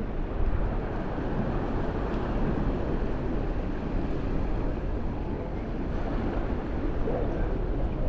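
Steady rushing noise of wind buffeting the camera's microphone, mixed with the wash of ocean surf.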